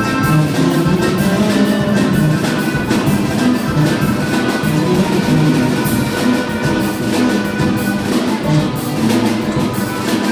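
Band music with drums and percussion keeping a steady beat under sustained melody instruments.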